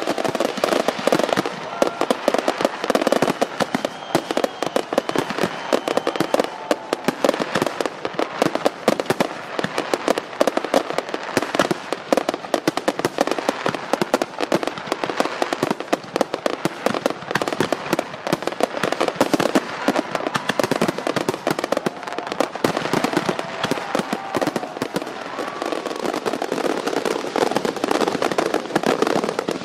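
Aerial fireworks display: a dense, continuous barrage of sharp cracks and pops from bursting shells and crackling stars.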